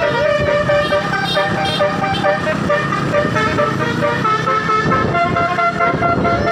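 Basuri (telolet) multi-tone bus horn playing a tune of held notes that step up and down in pitch, over the low rumble of the bus engine and traffic.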